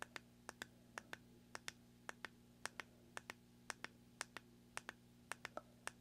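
Small tactile push button on a BLE Shark Nano handheld clicking quietly as it is tapped over and over, the clicks mostly in quick pairs, about two pairs a second.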